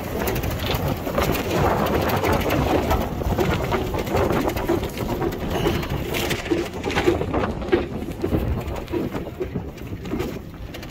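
Wind buffeting and rumble on a moving camera's microphone, with irregular knocks and jostling as it travels over rough pasture ground.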